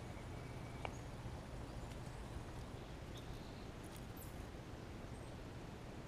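Quiet outdoor ambience: a steady hiss and low hum, a single sharp click about a second in, and a few faint, short, high chirps later on.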